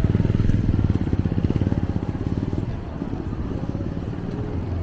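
Motor vehicle engine rumbling close by, loudest and pulsing in the first two and a half seconds, then settling to a steadier low hum.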